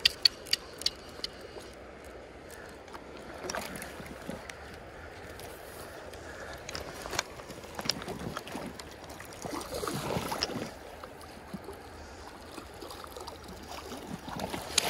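Shallow river rushing over a rocky bed. A few sharp clicks from a fly reel being wound come in the first second, and a louder stretch of sloshing water comes about ten seconds in.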